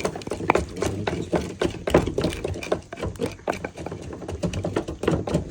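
Irregular clicks and knocks from spoons and hands working food in bowls and banana leaves, with faint voices in the background.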